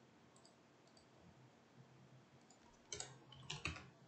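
Computer keyboard and mouse clicks over near silence: a couple of faint clicks at the start, then a quick run of sharper clicks about three seconds in.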